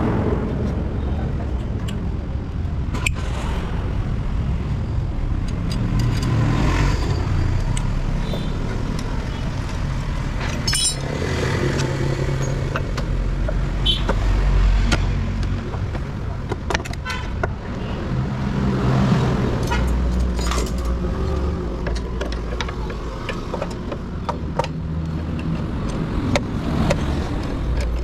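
Motor vehicle engines and road traffic, a steady low rumble that swells and fades as vehicles pass, with scattered sharp metallic clicks.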